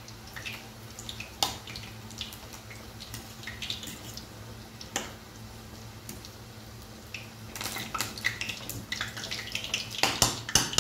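Metal kitchen utensils and a cooking pot clinking and knocking: a few scattered clinks, then a quicker run of clatter near the end, the loudest of it. A steady low hum runs underneath.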